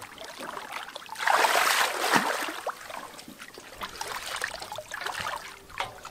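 Shallow floodwater splashing and trickling, with a louder splashing burst lasting about a second, starting a second in.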